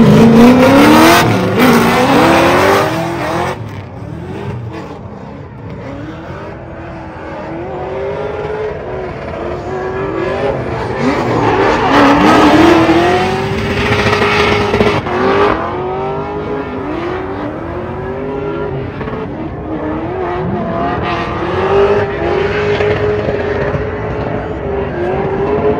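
Two drift cars launching together and running a tandem drift, their engines revving hard and rising and falling in pitch over and over as the drivers work the throttle, with tyre squeal. Loudest at the launch, it fades as the cars move away and swells again about twelve seconds in.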